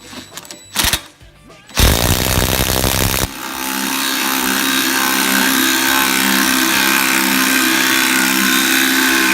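Power tool driving down the screw of a homemade bearing press: a harsh burst of about a second and a half, then a steady run with a constant whine for about seven seconds.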